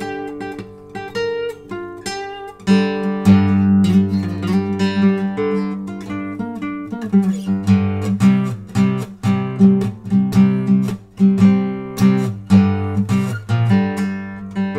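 Acoustic guitar strummed and picked in a rhythmic instrumental passage, with no singing.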